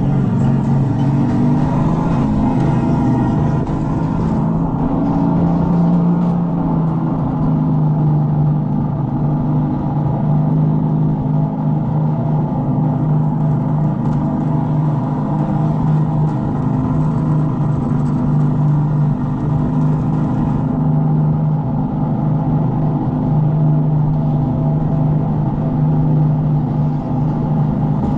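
A steady, engine-like drone holding a nearly even pitch with only slight rises and falls. It is the simulated engine sound played by the electric go-karts.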